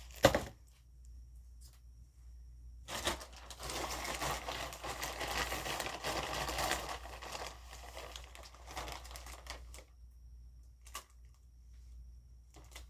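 Plastic packaging crinkling and rustling as it is handled and opened, dense for several seconds from about three seconds in. A sharp click comes right at the start and a few light clicks near the end.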